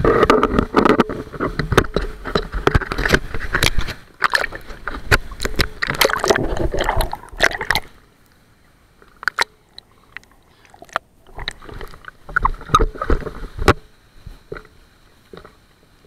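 River water sloshing and splashing against a camera held at the surface of a fast-flowing waterfall pool, in rough, choppy bursts. The splashing is loud and continuous for about the first half, then drops to scattered smaller splashes.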